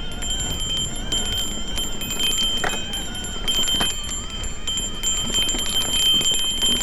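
Mountain bike coasting over a rough dirt trail: rapid steady ticking of the rear freehub, with frame and chain rattle, a couple of sharper knocks from bumps about two and a half and four seconds in, and a low wind rumble on the microphone.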